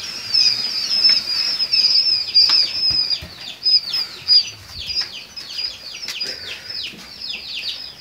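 A brood of quail chicks peeping nonstop: many high, short cheeps, each falling in pitch, several a second and overlapping.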